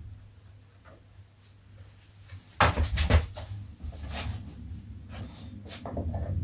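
Quiet at first, then a short cluster of sharp knocks and clatters about two and a half seconds in, followed by scattered clicks and rustle: a person getting up from under a workbench and handling things on it.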